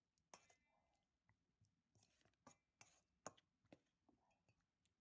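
Raw chicken wings squished and turned by hand in a wet egg-and-flour batter in a stainless steel bowl: faint, irregular wet squelches and clicks.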